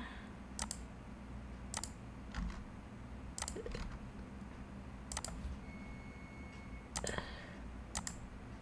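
Computer mouse clicking: single sharp clicks every second or two, over a faint steady low hum.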